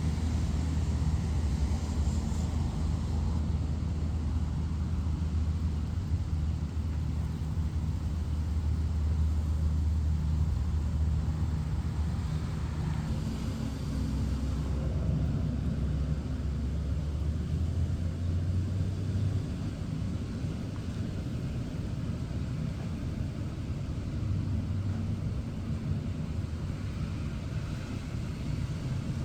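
Steady rain hiss with road traffic: a low engine rumble from passing vehicles, heaviest through the first two thirds and easing off after about 19 seconds, with a brief return a little later.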